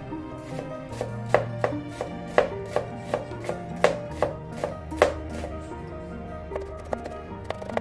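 Chef's knife slicing an onion on a plastic cutting board: a run of sharp chops, about three a second, then a quicker flurry of lighter cuts near the end. Soft background music plays underneath.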